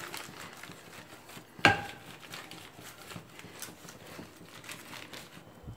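A wooden rolling pin pressing dough flat through a thin polythene sheet: faint crinkling of the plastic with light taps. There is one sharper knock about a second and a half in.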